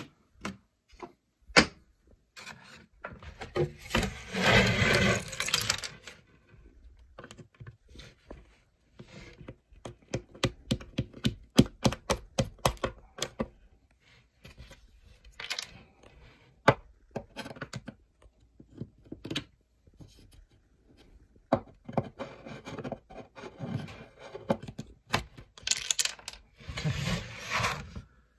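Plastic pinball playfield inserts being pushed out from behind and handled on the wooden playfield: irregular sharp clicks and knocks, with longer scraping handling noise about four seconds in and again through the last several seconds.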